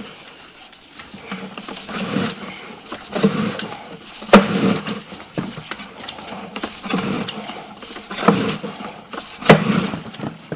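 Irregular knocks and scraping clatter as a sewer inspection camera's push cable is worked through the pipe. There are a few sharper knocks, the loudest a little over four seconds in and two more near the end.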